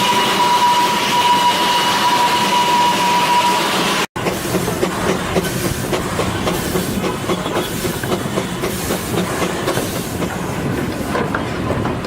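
Darjeeling toy train running on its narrow-gauge track. A steady high whine sits over the running noise for about four seconds; after a brief break, the wheels rumble with quick clicking.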